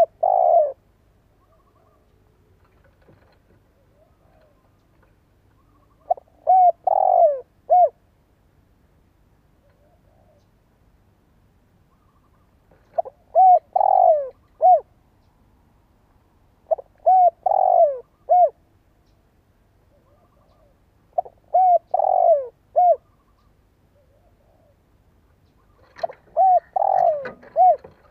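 Spotted dove cooing: a phrase of a few short coos around one longer falling coo, repeated six times at intervals of about four to five seconds. It is a decoy bird's call, used to draw wild doves in.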